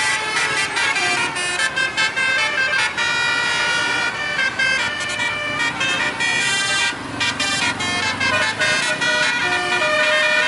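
Bus telolet horns playing a run of musical notes, several tones sounding together and stepping from pitch to pitch, over the noise of passing traffic.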